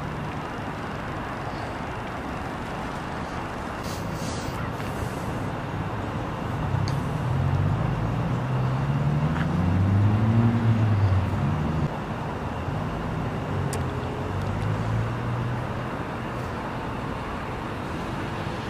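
Steady road traffic noise, with a vehicle engine rising in pitch as it speeds up about halfway through, loudest about ten seconds in, then settling back.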